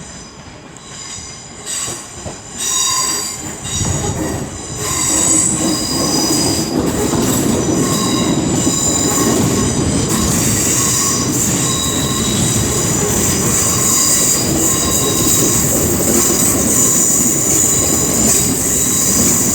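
Passenger train moving through the station, its wheels squealing in several high tones over a steady rumble that swells up about four seconds in.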